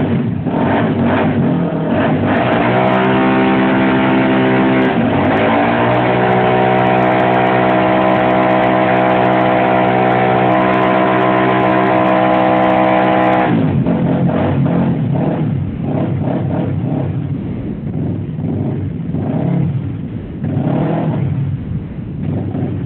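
Honda ATC 350X four-stroke single-cylinder engine in a Suzuki Quadracer ATV held at high revs for a burnout, the rear tyres spinning. The revs dip briefly about five seconds in, then hold steady and climb slightly. About halfway through the throttle comes off and the engine runs lower and unevenly, with another blip of the throttle near the end.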